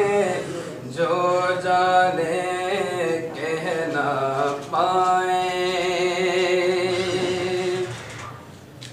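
A man's solo voice singing or chanting a melody unaccompanied, in long drawn-out notes, with one note held for about three seconds near the middle.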